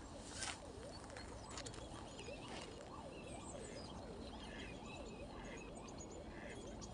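A spinning reel being wound steadily on the retrieve: a faint whir that rises and falls in pitch over and over with the turning of the handle.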